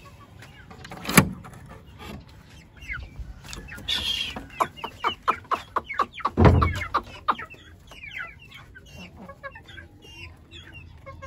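A flock of chickens clucking and calling in short, scattered notes. A sharp knock comes about a second in, and a run of quick clicks and thumps follows between about four and seven seconds in, the loudest near the end of that run.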